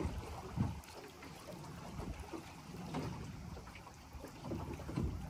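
Water lapping against the hull of a small fishing boat at sea, with a few dull knocks and wind on the microphone.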